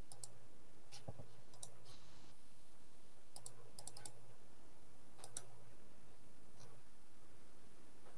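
Scattered light clicks of someone working a computer, some single and some in quick pairs and triplets, over a faint low hum that comes and goes.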